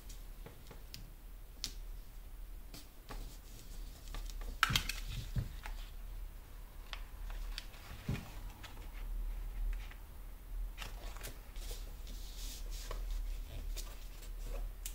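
Hands working paper and washi tape on a planner insert: paper rustling, light taps and clicks, with a sharper knock about four and a half seconds in, and small scissor snips near the end as the tape is trimmed along the edge of the page.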